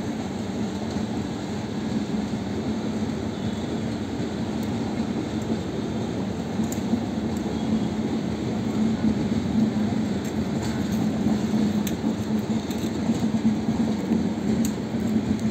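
Passenger coaches of an Indian Railways express train rolling past: a steady rumble of wheels on rails that grows a little louder in the second half, with a few faint clicks.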